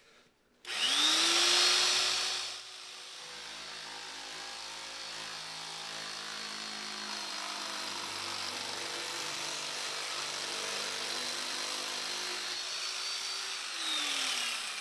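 Handheld electric sheet-metal shear cutting 20-gauge steel sheet. The motor starts with a rising whine and is loudest for the first two seconds, runs steadily through the cut, then winds down with a falling whine near the end.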